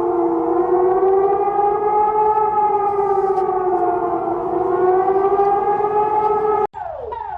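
Civil defense siren wailing, its pitch slowly rising and falling. Near the end it cuts off abruptly and a different alarm tone starts, sweeping downward over and over, a little under twice a second.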